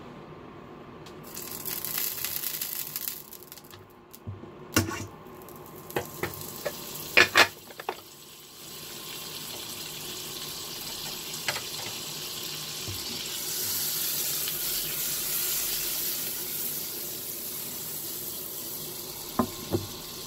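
Butter melting and sizzling in a hot frying pan, a steady hiss that builds from about halfway through as the butter foams. Before it come a few sharp clicks and knocks of metal utensils against the pan, the loudest about a third of the way in, and two more clicks near the end.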